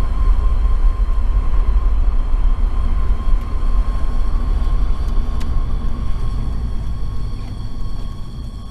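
Mazda Miata NB1 being driven, with a steady whine over a deep road and drivetrain rumble. This is the weird sound that has come up since a clutch and rear main seal job. It stays the same in or out of gear, clutch in or out, on or off the throttle, and stops only when the car stops, which points to the driveline; the owner is uncertain of the cause.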